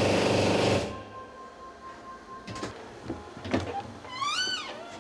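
Torrent 400 parts washer's high-pressure water spray running loud and steady, then cutting off suddenly just under a second in as the timed wash cycle ends. It is followed by a faint steady tone, clicks and knocks, and a short rising-and-falling squeak as the cabinet is opened.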